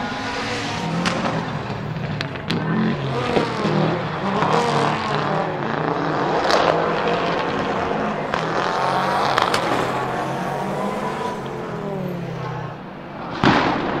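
Subaru Legacy RS Group A rally car's turbocharged 2.0-litre flat-four boxer engine driven hard, its pitch repeatedly climbing and dropping through gear changes. A few sharp cracks come through, the loudest near the end.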